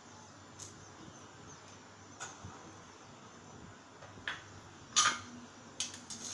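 A few short, sharp taps and clicks of kitchen handling, the loudest about five seconds in, over a faint steady background.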